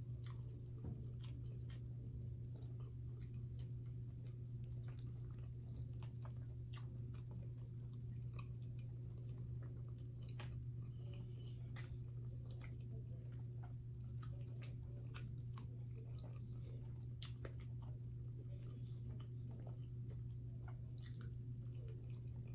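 Close-miked chewing and eating sounds, with many scattered short clicks, over a steady low hum.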